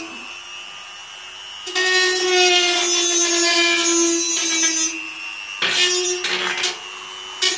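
Small handheld rotary tool with a thin diamond cutting disc running with a steady whine, grinding the edge of toughened glass to round off its corners. The sound is quieter for the first second and a half, then louder and rougher as the disc bites, easing off briefly twice near the end.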